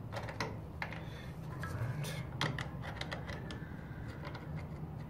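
Scattered metallic clicks and taps of hand tools working a crank puller on a bicycle crank arm, about a dozen irregular ticks, mostly in the first three seconds or so.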